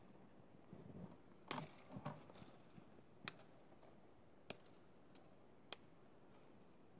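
Near quiet, broken by about six faint, sharp clicks and ticks scattered through it.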